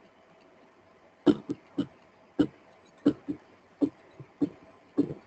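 Computer keyboard typing: about a dozen sharp, irregular key taps starting about a second in.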